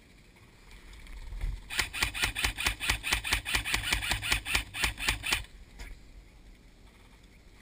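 Airsoft rifle firing a steady string of rapid shots, about five a second, for nearly four seconds, each shot a sharp crack.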